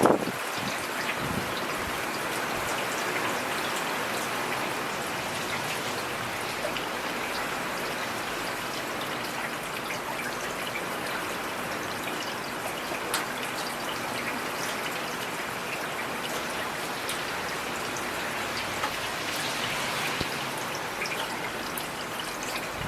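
Heavy rain falling steadily: a dense, even hiss with scattered sharp taps of individual drops.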